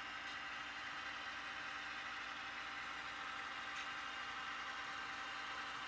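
Sound-equipped HO scale model diesel locomotives running steadily, their onboard diesel engine sound playing as an even, unchanging engine drone.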